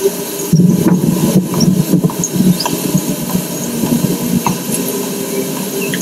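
Low rumbling drone of an ambient electronic soundtrack, with a steady held tone that comes back in the second half and faint scattered high chirps over it.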